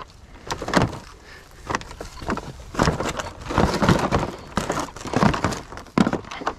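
An irregular series of about ten knocks, clatters and scrapes, with rustling in between, as of objects being handled or moved about.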